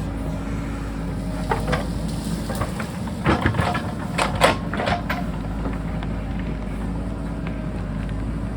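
JCB backhoe's diesel engine running steadily, with a run of sharp knocks and clatter in the middle, the bucket striking and scraping rock.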